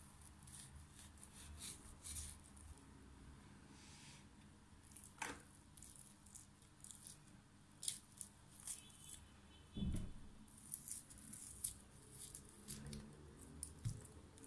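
Faint wet squishing and tearing as a raw Atlantic bonito is gutted by hand on a plastic cutting board, with scattered small clicks and rustles. A dull thump about ten seconds in.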